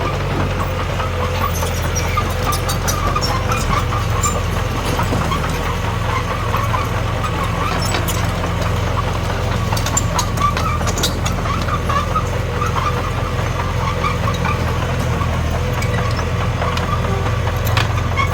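Komatsu D21P bulldozer's diesel engine running steadily under work, with scattered light clicks and clanks over the steady drone.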